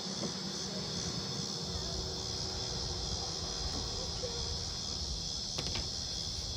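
Steady evening chorus of insects such as crickets, a continuous high-pitched trill. A low rumble joins about two seconds in.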